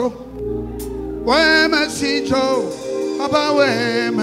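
Gospel song: a voice singing phrases over sustained keyboard chords and a low bass, with the singing coming back in about a second in.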